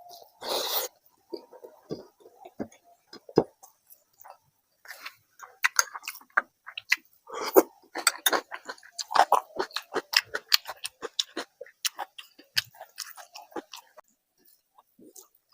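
Close-miked eating sounds: chewing with many quick wet mouth smacks and clicks, sparse at first and coming thick and fast from about five seconds in, then dying away near the end.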